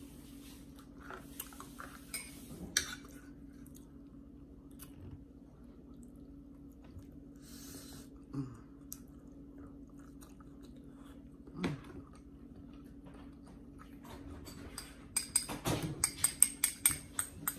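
Close-up eating sounds: chewing, with a few scattered clicks of a fork on a plate. From about 15 seconds in comes a rapid run of clinks and scrapes of a fork against dishes.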